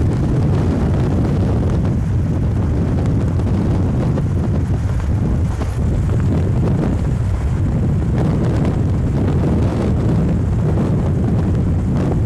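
Wind rushing over the microphone and tyre and road noise from a car driving at speed, a steady low rumble.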